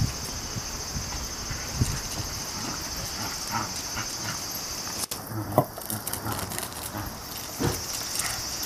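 Steady high chirring of insects, with scattered light scuffs and footfalls of Shiba Inu dogs running and playing on concrete, and a sharp click about five seconds in.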